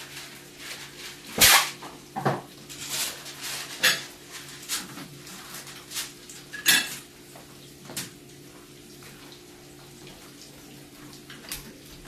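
Kitchen clatter: dishes and utensils knocking and being set down, a handful of sharp knocks over the first eight seconds, the loudest about a second and a half in, over a steady low hum.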